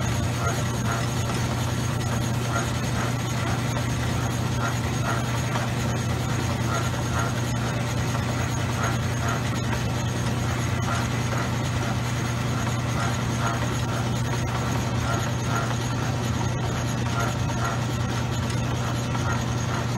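Small metal lathe running with a steady motor hum as its cutting tool turns down the hub of a nickel-plated toy train drive wheel.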